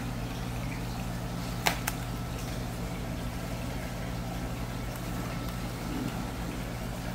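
Steady low machine hum with a faint watery hiss. Two sharp clicks come close together about a second and a half in.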